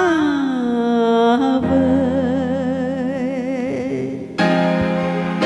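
A woman singing a long held note that slides down in pitch, then a held note with vibrato, over a backing track; about four seconds in the backing music comes in more fully with new chords.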